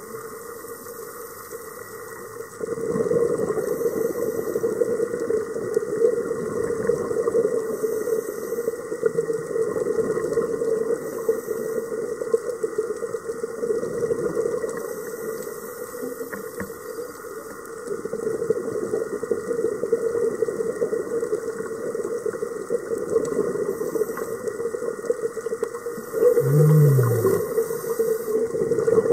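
Underwater sound through a camera housing on a scuba dive: a diver breathing through the regulator, with the rush of exhaled bubbles swelling in long loud stretches over a steady hum. Near the end a short low tone drops in pitch.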